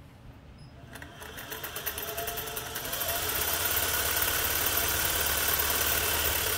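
Freshly tuned-up Singer 401A sewing machine starting up about a second in, its motor rising in pitch as it speeds up, then stitching steadily at speed through fabric while sewing a test row of a decorative stitch.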